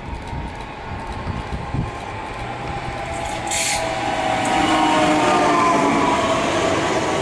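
PESA Elf 2 (27WEb) electric multiple unit approaching and passing close by, its rumble building into a louder whine of several tones from the traction motors and drive. A short hiss comes about three and a half seconds in.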